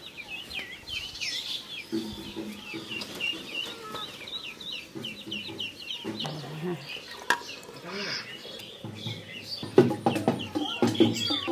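Chickens clucking, with a steady run of short, high chirps and a few sharp clatters about ten seconds in.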